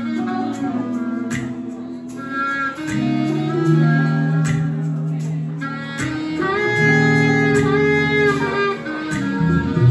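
Live band playing an instrumental passage with no vocals: electric guitar, bass guitar and drums, with saxophone over the top.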